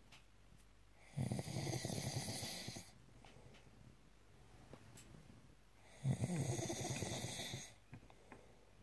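A sleeping person snoring: two long, fluttering snores about five seconds apart, each lasting under two seconds, with quiet between.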